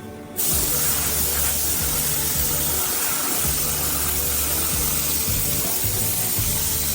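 A steady spraying hiss starts abruptly about half a second in and holds, over background music with a repeating bass line.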